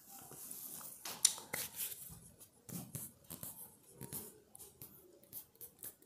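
Writing strokes: short, irregular, scratchy strokes, the loudest about a second in.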